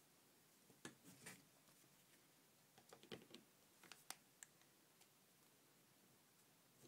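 Faint, scattered clicks and small taps of a precision screwdriver and small phone parts being handled and set down on a table, in a few quick clusters.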